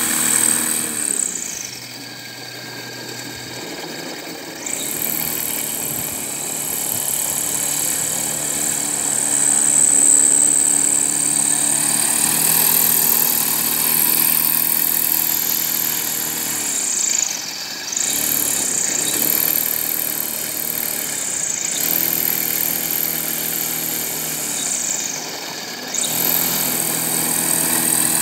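Electric motor and propeller of a home-built propeller sled running, a steady whine over a propeller drone. Several times the pitch drops and climbs back as the throttle is eased and reopened.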